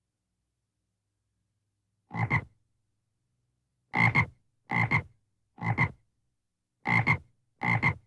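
A frog croaking: six short croaks at uneven gaps, beginning about two seconds in, each one a quick double pulse.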